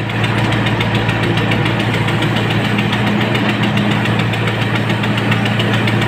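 JCB 3CX backhoe loader's four-cylinder diesel engine running steadily with an even clatter, heard from inside the cab.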